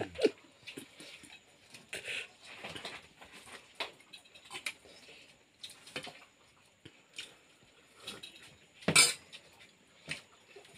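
Stainless steel plates, bowls and a spoon clinking and scraping during a meal eaten by hand, in scattered light knocks, with one louder noise about nine seconds in.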